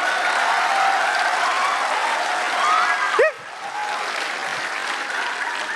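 Studio audience applauding and laughing, with a brief shout about three seconds in. After that the applause eases off a little.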